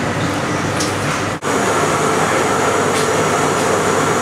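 Steady, loud rushing and rumbling noise, like a fan or blower running. It breaks off for an instant about a second and a half in, then carries on the same.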